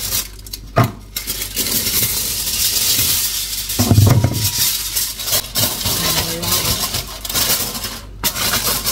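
Aluminium foil crinkling and rustling as it is unrolled and pressed around a bowl, with a dull thump about four seconds in.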